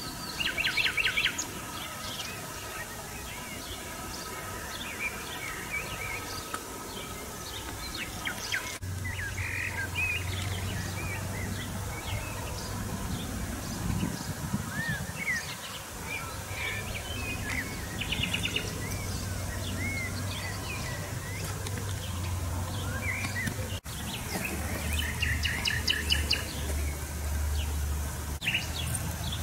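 Several small songbirds chirping and trilling, with a low steady hum coming in about a third of the way through.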